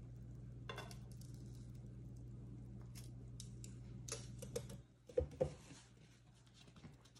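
Light clicks of metal kitchen tongs and plate handling, then two sharp knocks about five seconds in as the tongs are set down on the stone countertop. A steady low hum stops just before the knocks.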